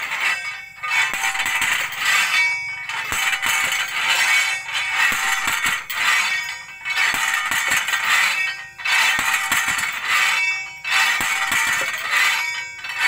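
A heavy drop weight hauled up on a rope and pulley pounds the drive head of a well pipe about once every two seconds, each blow a metallic clang that rings on. This is the pipe being driven down into the ground by hand to reach water.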